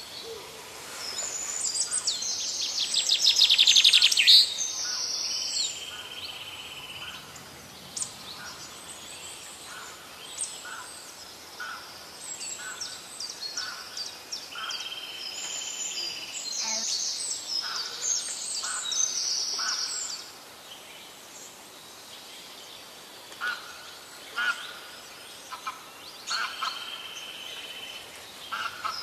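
Birds chirping and calling: bursts of fast high chirps, loudest in the first few seconds, a few held high notes lasting about a second, and shorter calls repeating about once a second.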